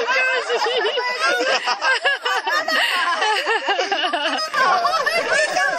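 A group of people laughing together, several voices overlapping, with snatches of talk mixed in.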